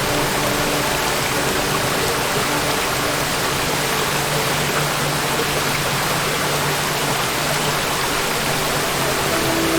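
Waterfall: a steady, even rush of falling water. Faint held musical tones sit underneath and grow a little near the end.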